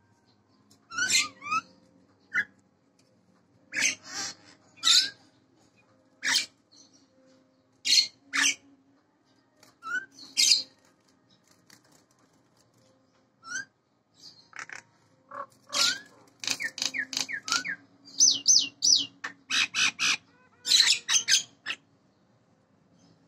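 Nias hill myna calling loudly: short whistles and rising chirps, one call every second or two at first, then a fast run of calls in the second half.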